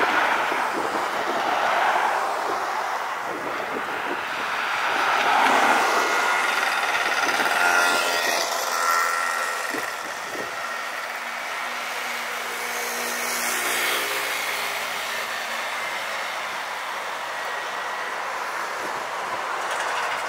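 City street traffic: cars drive past close by, loudest about two and six seconds in. From about seven seconds a steady whine of several tones from a passing vehicle sets in and fades away over the following seconds.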